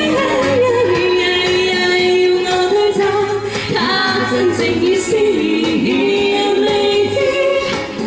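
A man and a woman singing a pop duet into amplified microphones over a backing track, with long held notes and a steady beat beneath.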